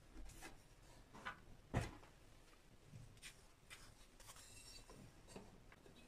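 Foundry molding sand being scooped and dropped into a wooden flask: faint scraping and rustling, with a short knock about two seconds in.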